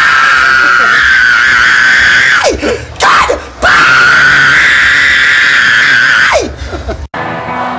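A man screaming at the top of his voice, two long held screams with a brief break between, each sliding down in pitch as it ends. Just before the end it cuts abruptly to a live rock band playing.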